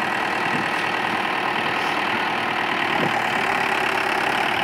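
Mahindra 475 DI tractor's diesel engine idling steadily.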